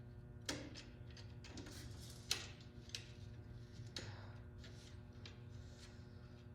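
Scattered light metallic clicks and taps of a small nut and hand tools being handled during repair work, over a steady low hum.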